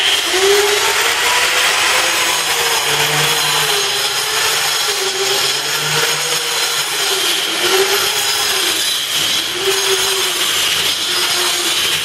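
Angle grinder switched on and cutting a slot into a concrete wall: a loud, steady grinding whine whose pitch repeatedly sags and recovers as the disc bites into the concrete.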